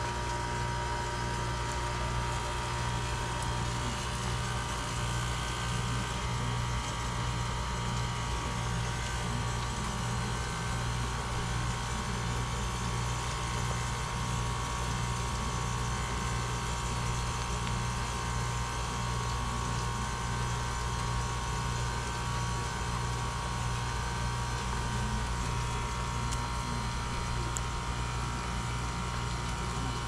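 2012 Goodman 2-ton heat pump outdoor unit running steadily: a low, even hum with a faint constant higher tone above it.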